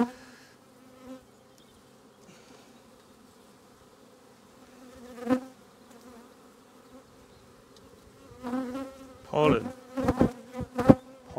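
Honey bees buzzing steadily around an open hive, a low even hum. A sharp knock about five seconds in, and a few more knocks near the end.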